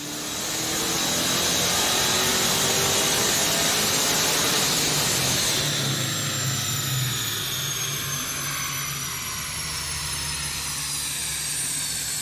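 Mustang GT with a swapped 5.4 DOHC V8, long-tube headers, X-pipe and Pypes Violator mufflers, making a full-throttle chassis-dyno pull: the engine note climbs in pitch, then about six seconds in it eases off and the pitch falls away as it winds down.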